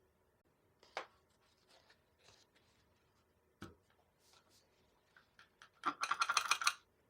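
Small nail-care tools being handled and scraped: a few scattered clicks and scrapes, then near the end a quick run of about a dozen ticks lasting about a second.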